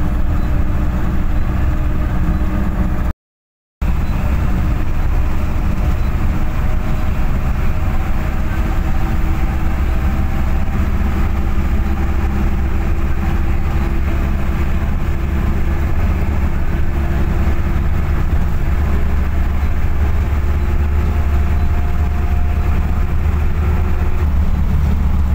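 Steady low drone and road rumble of a moving vehicle heard from inside its cabin, with faint engine tones drifting slowly in pitch. The sound cuts out completely for under a second about three seconds in.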